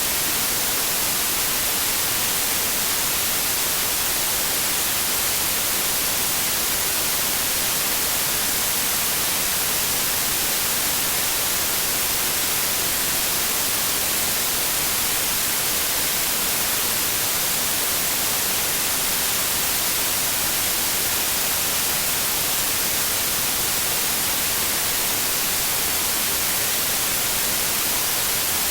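Steady white noise: an even, unbroken hiss at constant level throughout, strongest in the high frequencies.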